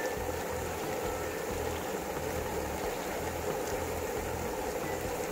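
Steady rush and gurgle of flowing creek water.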